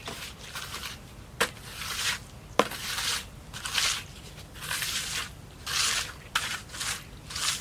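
Dry material rustling and scraping in short repeated bursts, with two sharp cracks about a second apart early on.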